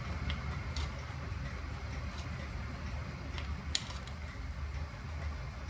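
A few short, sharp plastic clicks as a plug adapter is pulled from and pushed back into a power strip, over a low steady hum.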